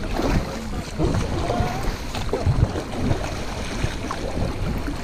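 Kayak paddle strokes splashing and dripping in the river water as the kayak moves along, with wind buffeting the microphone.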